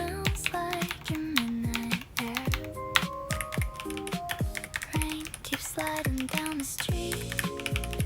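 Clicky key presses on a Lofree Dot Foundation calculator, tapped in quick irregular runs over a pop song with a steady beat and a melody.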